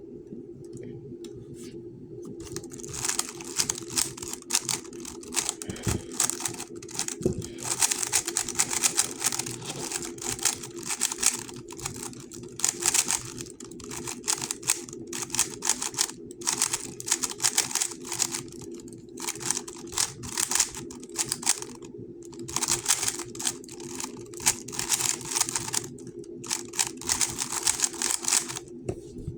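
GAN 11 M Pro magnetic speedcube being turned fast by hand during a timed solve: runs of rapid plastic clicking broken by short pauses. It starts about three seconds in and stops just before the end, over a steady low hum.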